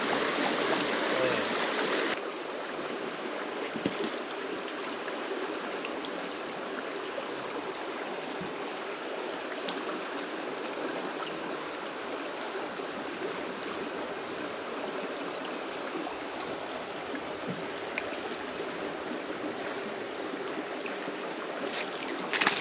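Creek water running steadily, louder for the first two seconds and then softer and even, with a few faint ticks.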